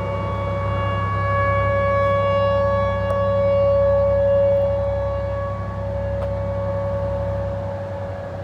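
Outdoor tornado warning siren sounding during a storm alert, holding a steady tone after winding up, swelling louder around the middle and easing off toward the end.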